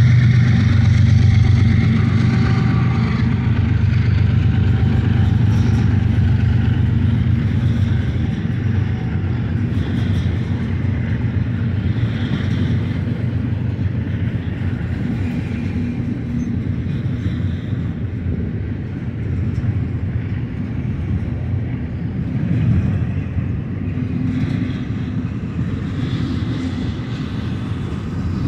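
Double-stack container train rolling past: a steady rumble of steel wheels on rail from the passing well cars. A low hum is strongest in the first dozen seconds, and the whole sound eases slowly as the train goes by.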